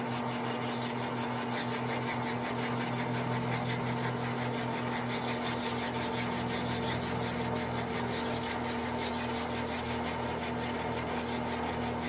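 Metal lathe running at steady speed, a steady hum with a fine even rhythm from the drive, as the tool takes a light skim pass along a spinning brass bar to cut through the oxide skin.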